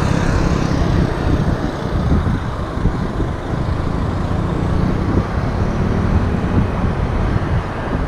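Wind buffeting an action camera's microphone on a moving bicycle, a dense, steady rumble, mixed with road traffic passing.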